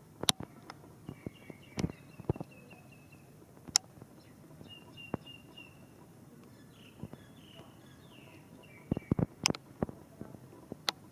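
Scattered drops of rain dripping onto hard surfaces, irregular sharp taps with a brief flurry near the end, over a faint hiss of rain. A small bird chirps in three short bouts of quick, high notes.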